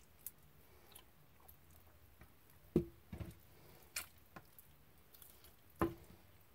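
Hands picking the meat and skin off cooked pig's feet: a handful of soft, wet squishes and small clicks, the sharpest a little under three seconds in and again near six seconds.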